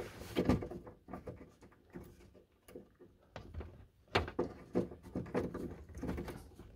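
Scattered light knocks and scrapes of a power cord plug being forced into a tight socket under a massage chair's base, the plug and cord bumping against the plastic housing, loudest about half a second and about four seconds in.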